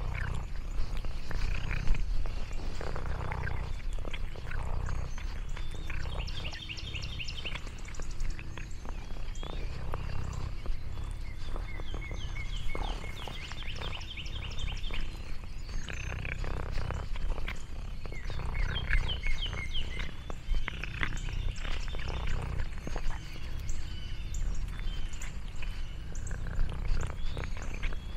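Domestic cat purring close to the microphone, a continuous low rumble that pulses with its breathing. Birds chirp in the background in quick repeated phrases.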